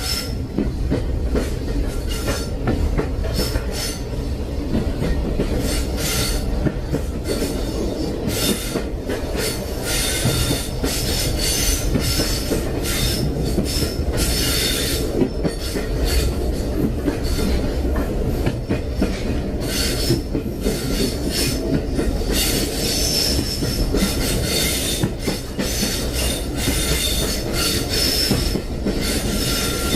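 Train running with a steady low rumble, while high-pitched squealing from the wheels on the rails comes and goes every second or two.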